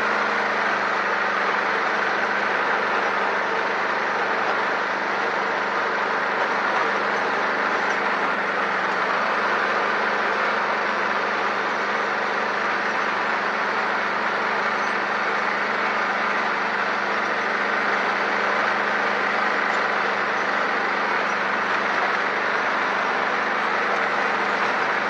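Engine idling steadily just after starting, holding an even pitch with no revving.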